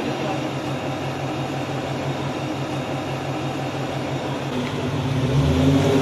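An off-road 4x4's engine runs steadily, then grows louder and fuller about five seconds in as it picks up revs.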